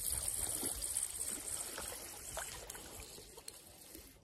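Faint trickling and lapping of lake water, fading away, with a few light ticks.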